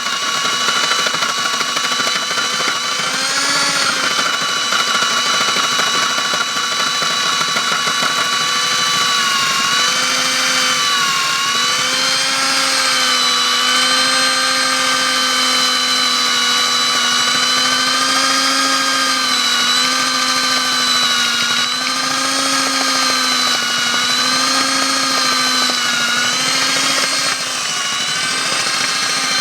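DD-100 diamond core drill boring continuously, run together with a vacuum cleaner; its motor hum wavers up and down in pitch as the load on the bit changes.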